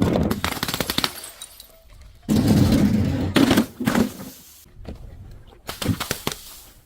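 Glass bottles shattering: several separate crashes, the loudest about two seconds in, carrying on for about a second before it fades.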